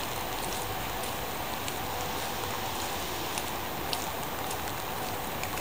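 Steady rain falling on wet pavement and trees, an even hiss with a few sharper drop ticks, the clearest just before four seconds in.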